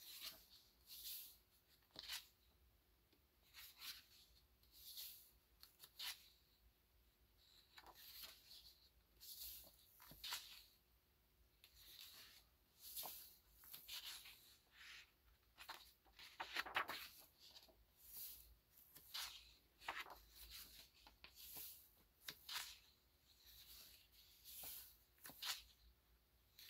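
Stiff card pages of an accordion-fold postcard booklet being turned and handled by hand: a series of short, soft paper rustles and flicks, about one a second, the loudest about two-thirds of the way through.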